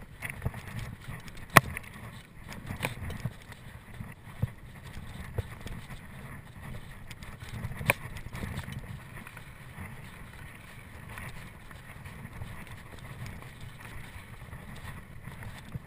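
Mountain bike riding over a rough dirt trail: a steady low rumble of tyres and wind on the microphone, broken by several sharp knocks and rattles from the bike. The loudest come about a second and a half in and about eight seconds in.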